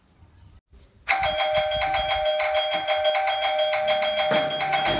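Electric call bell starts ringing about a second in and keeps ringing with a fast, even pulse, a summons for the office attendants.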